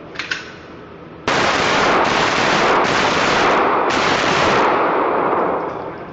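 Rapid pistol fire at an indoor range. About a second in the shots start and follow so fast that the echo in the hall blurs them into a near-continuous racket, easing off shortly before the end.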